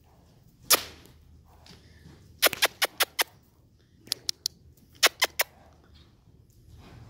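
A person clicking their tongue to drive a loose horse on: one sharp click about three-quarters of a second in, then quick runs of three to five clicks, about five a second.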